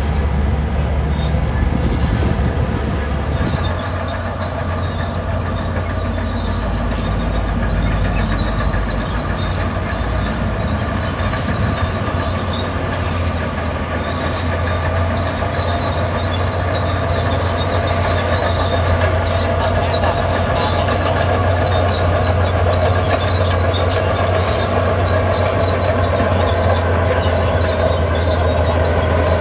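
Zoomlion crawler bulldozer working, its diesel engine running steadily under load while the steel tracks squeal and clatter.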